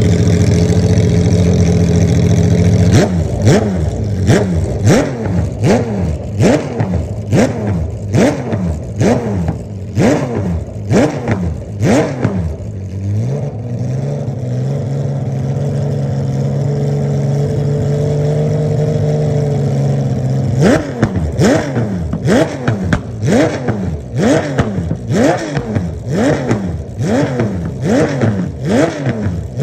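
Porsche 996 GT3 RSR race car's flat-six engine, very loud, blipped over and over about once a second, the revs shooting up and dropping straight back. For several seconds midway it holds a steady fast idle instead.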